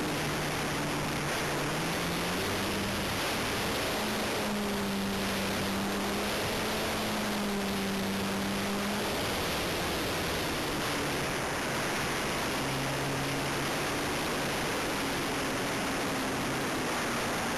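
Steady wind rush over the microphone of a Super Cub airplane in flight, with the propeller's hum underneath. The hum rises in pitch a few seconds in, drops around the middle, and rises again near the end as the throttle changes.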